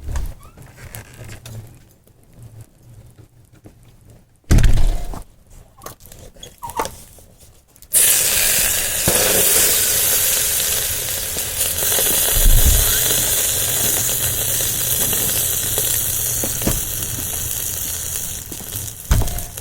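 High-voltage electrical arc of about 2000 volts sizzling and crackling across an old alarm clock. It switches on abruptly about eight seconds in, after two thumps, and runs steadily.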